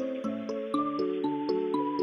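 Instrumental music: layered sustained notes whose pitches change every quarter to half second, over light high ticks about four times a second.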